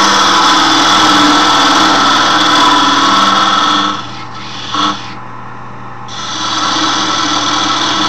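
A turning tool cutting into a spinning wooden file handle on a wood lathe: a loud, steady scraping hiss over the lathe's motor hum. The cut eases off about four seconds in, with a short scrape, and the tool bites in again about two seconds later.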